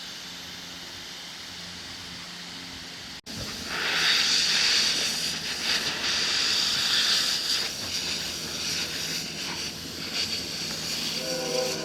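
Air hissing out of a car tire as it deflates, starting about three seconds in and continuing loud and fairly steady, wavering a little.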